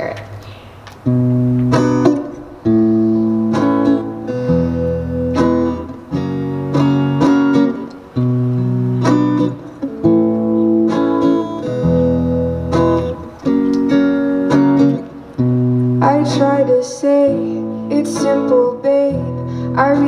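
Acoustic guitar strummed solo, one chord every second or so in a repeating pattern, as a song's intro. A woman's singing voice comes in near the end.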